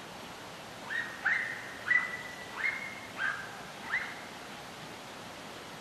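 Drever hound baying: a run of about six drawn-out high calls, each rising quickly and then held, coming in quick succession between one and four seconds in, the dog giving tongue as it follows a roe deer's track.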